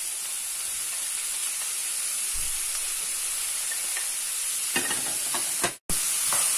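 Pork strips and vegetables frying in a pan with a steady sizzling hiss. A few scrapes and knocks come near the end as a wooden spatula pushes the meat off the plate and stirs. The sound drops out for an instant just before the end.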